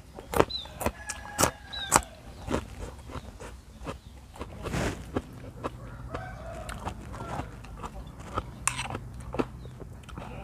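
Close-up chewing and crunching of raw bitter gourd, with crisp crunches packed into the first couple of seconds and fewer after. Chickens cluck in the background.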